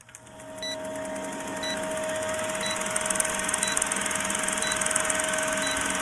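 Old film projector countdown sound effect: a steady mechanical whir with fast fine ticking, fading in over the first couple of seconds, and a short high beep about once a second marking the count.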